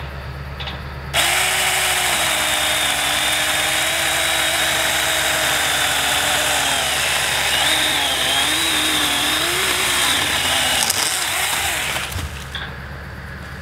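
Saker mini cordless electric chainsaw with a 4-inch bar starting about a second in and cutting through a soft-wooded sapling trunk for about ten seconds, its motor whine wavering in pitch as the chain bites, then stopping.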